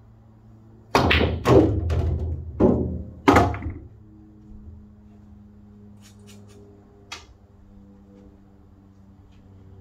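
A pool shot: the cue tip strikes the cue ball, followed by a run of loud knocks and thuds as the balls collide, hit the cushion and a ball drops into a pocket, five impacts over about two and a half seconds.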